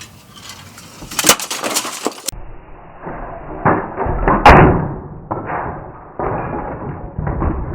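A LEGO model being smashed apart: sharp cracks and a clatter of plastic bricks, with the loudest crash about four and a half seconds in.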